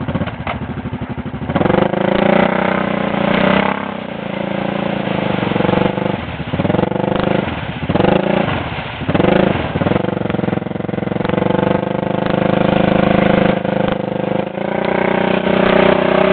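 Arctic Cat 650 ATV engine revving hard as it churns through ice and mud, its pitch rising and falling several times and then held high for several seconds.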